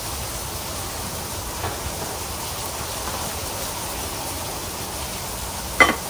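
Steady rushing wind on the microphone mixed with the hiss of food sizzling on a flat-top griddle. A pan gives one sharp knock near the end.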